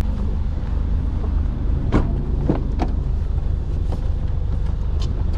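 Car driving: a steady low rumble of engine and road noise, with a few light clicks and knocks about two seconds in and again near four and five seconds.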